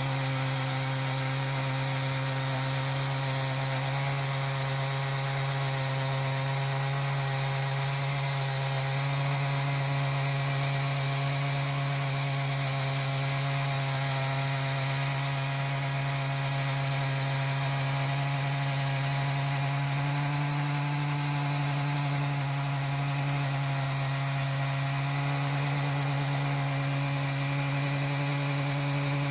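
Stihl MS661 two-stroke chainsaw running steadily under load in an Alaskan chainsaw mill, ripping a slab lengthwise along a spalted maple log. The engine pitch holds even throughout the cut.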